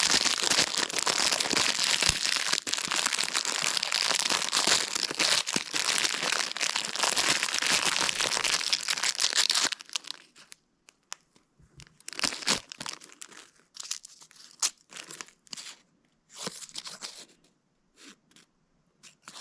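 Plastic fortune cookie wrapper crinkling and being torn open, a dense crackle for about ten seconds. It then gives way to sparser, quieter crackles and crunches as the cookie is broken open for its fortune slip.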